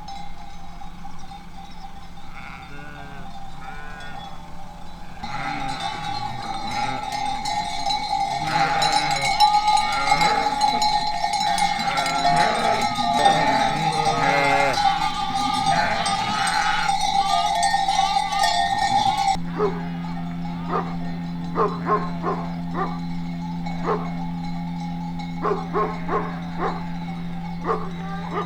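Sheep bells clanking and jangling as a flock moves, with sheep bleating now and then. About nineteen seconds in the sound changes abruptly to sparser, sharper clanks over a low steady hum.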